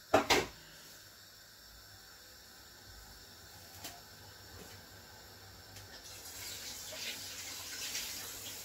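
Two sharp knocks right at the start, then a faint hiss of water running from a kitchen tap that swells over the last two or three seconds.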